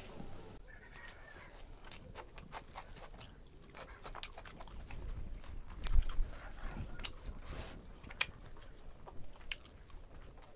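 Close-up mouth sounds of a person eating mutton biryani by hand: chewing with many small wet smacks and clicks, and a breath about two-thirds of the way in. A single low thump, the loudest sound, comes about six seconds in.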